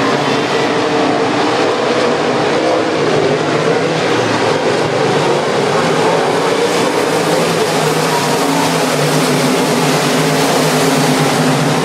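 A field of race cars running together on the track, many engine notes layered at once in a steady loud sound.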